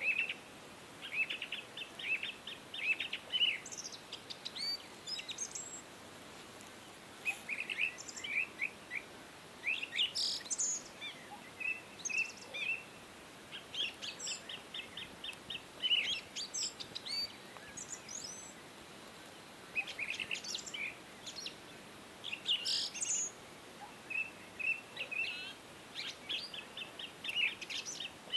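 Several small birds chirping, short quick calls and trills overlapping one another without a break.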